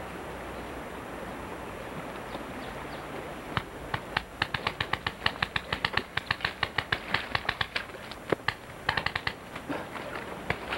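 Paintball markers firing in rapid strings of sharp pops, several shots a second, starting about three and a half seconds in after a steady background hiss, with a short break near the end before a last burst.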